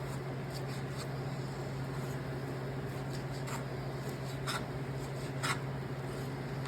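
Knife slicing steak on a cutting board: faint scraping with a few light taps of the blade against the board, over a steady low hum.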